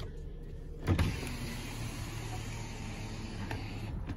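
2017 Nissan Pathfinder's driver's front power window motor running as the glass lowers, starting with a thump about a second in and running steadily until it stops near the end.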